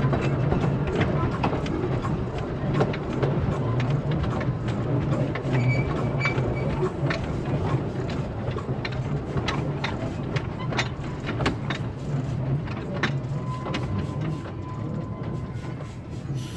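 Bagnall narrow-gauge saddle-tank steam locomotive running along the track as heard from its footplate: a steady low rumble of engine and wheels with scattered sharp clicks and knocks, growing slightly quieter towards the end.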